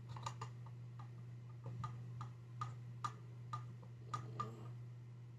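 About a dozen light, irregular clicks and taps of the massage gun's plastic housing and internal parts being handled and fitted together, over a steady low hum.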